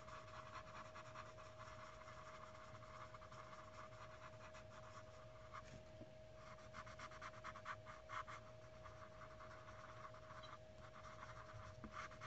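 Faint, rapid scratching of a wax-based colored pencil on paper in small shading and blending strokes, busiest around the middle. A faint steady hum runs underneath.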